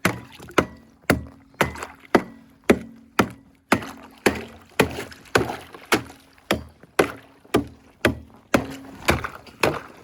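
Ice frozen solid in a heated water trough being chopped, a tool striking it in a steady rhythm of about two blows a second.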